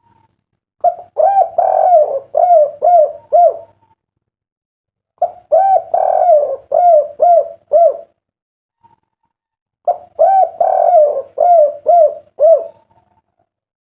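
Spotted dove (derkuku) cooing: three phrases a couple of seconds apart, each a run of about seven or eight rising-and-falling coos, the 'kuk 3' song that fanciers prize.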